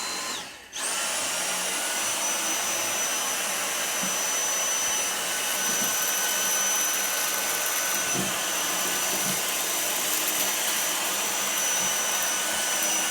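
Vacuum cleaner starting up about a second in and then running steadily with a high motor whine as it sucks up mess, with a few faint knocks.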